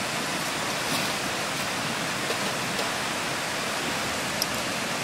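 Steady sound of a river flowing, with a few faint clicks.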